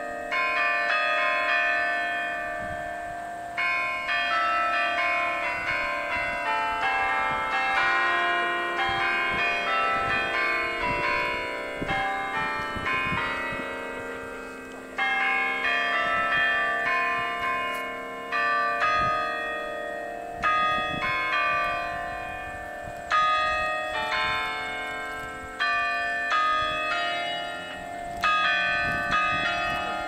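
The bells of a carillon tower ringing. Runs of several bells are struck in quick succession every few seconds, and their tones overlap and ring on, fading between runs.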